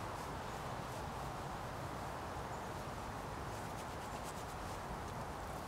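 Paintbrush rubbing paint onto a painting panel, a steady rubbing.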